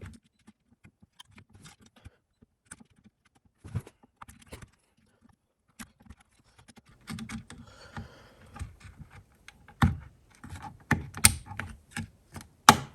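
A RAM module being fitted into a motherboard's memory slot: scattered light plastic taps and handling, busier in the second half, with several sharp clicks in the last three seconds as the stick is pressed home and seated.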